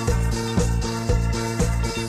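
A live band plays an up-tempo dance number. Drums and bass keep a steady beat of about two beats a second under guitar and keyboards.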